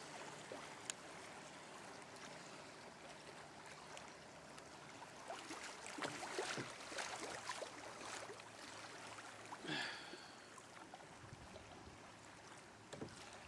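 Faint rippling and gurgling of river water around a moving canoe, with a run of small splashes and drips in the middle, and a brief pitched call about ten seconds in.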